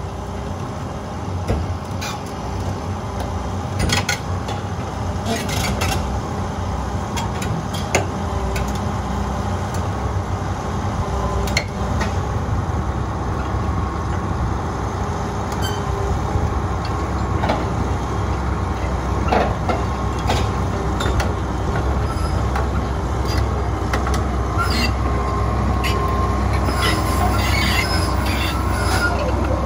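Liebherr 954 crawler excavator's diesel engine running steadily as the machine tracks forward onto a lowboy trailer, with irregular clanks and knocks from its steel track chains. A thin steady whine joins in during the later part.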